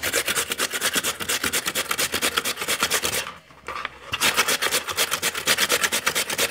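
Raw potato being grated on a flat metal hand grater, a rasping scrape at each quick, even stroke, with a short pause a little past halfway.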